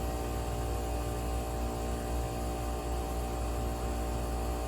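Air compressor feeding a smoke leak detector running with a steady, even hum that holds one pitch throughout.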